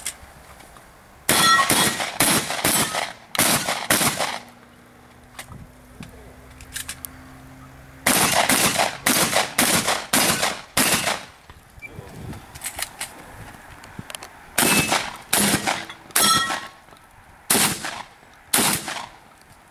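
Shotgun fired rapidly in three strings of shots, about two a second, with pauses of a few seconds between the strings.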